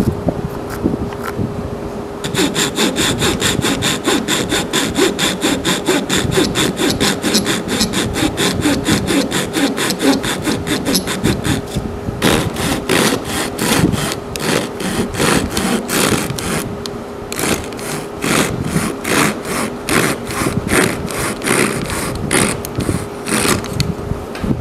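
Fine-toothed handsaw cutting dovetail joints into a cedar board held in a vise: rapid, even back-and-forth strokes that start about two seconds in, with a few short pauses. A steady fan hum runs underneath.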